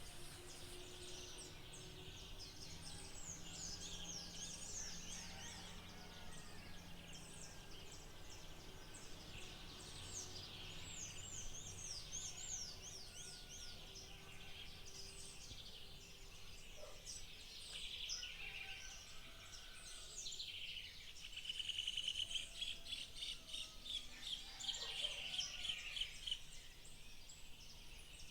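Several songbirds singing and chirping together in a dawn chorus, with many quick high chirps and short falling notes overlapping. A rapid, evenly pulsed trill stands out about three-quarters of the way through, the loudest part.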